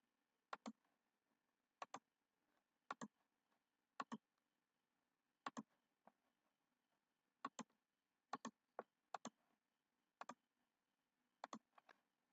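Faint, unhurried clicking: about a dozen sharp clicks at irregular intervals, roughly one a second, most coming as a quick pair like a button being pressed and released.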